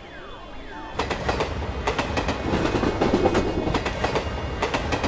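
A train running fast over the rails, its wheels clattering over the rail joints, crossing a steel truss bridge. It comes in suddenly and loud about a second in, after a few faint falling chirps.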